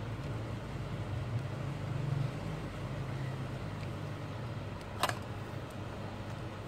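Steady low background rumble, with one sharp click about five seconds in.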